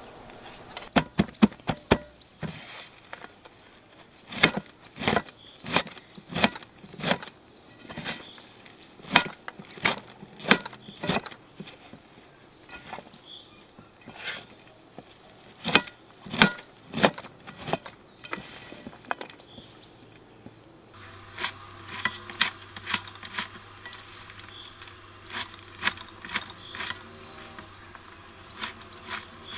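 A large knife chopping fresh herbs, carrot and garlic on a metal tray, with sharp chops at an uneven pace of about one or two a second.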